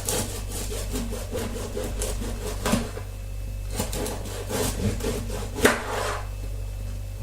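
Bread knife sawing through a stale, crusty granary baton, cutting it into thin slices in uneven scraping strokes.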